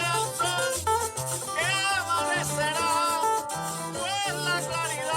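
Background Latin Christmas music: a sung vocal over a steady, repeating bass line.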